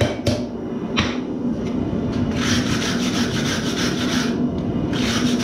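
A couple of hammer blows on the hot Damascus billet on the anvil in the first second, as the forge welds are set. Then rasping back-and-forth scrubbing over the steel, like a wire brush clearing scale, for about two seconds and again near the end.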